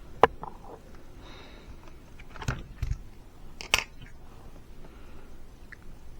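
Sharp clicks and knocks of small tools and hard plastic parts being handled, with fainter ticks between them; the loudest click comes about a quarter second in, with others near the middle.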